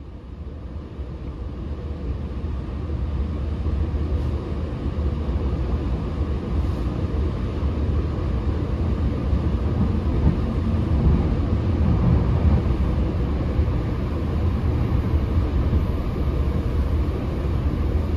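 Steady low rumble of a moving Metrolink commuter train, heard from inside a passenger car, growing louder over the first several seconds and then holding steady.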